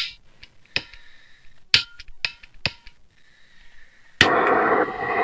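A few sharp clicks and taps, some with a short metallic ring, then about four seconds in a loud steady hiss starts abruptly: a heat tool being run to shrink tubing over a wire joint.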